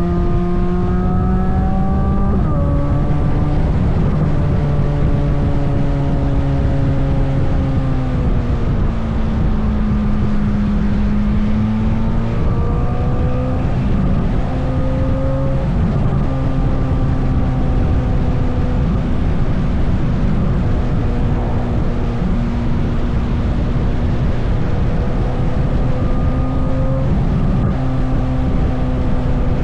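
Chevrolet Corvette C8 Z06's flat-plane-crank V8 on trailing throttle down a hill. The engine note drifts and steps in pitch several times as the revs change, over a steady rush of road and wind noise.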